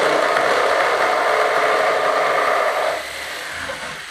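Electric jigsaw cutting through a glued pine worktop, making the sink cut-out. The cut stops about three seconds in, and the sound drops sharply and fades after that.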